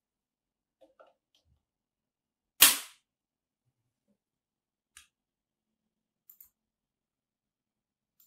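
Pen-holder end effector snapping onto the Hexbot robot arm's mount: one sharp, loud click about two and a half seconds in, with a brief ring after it. A few faint handling clicks and taps come before and after it.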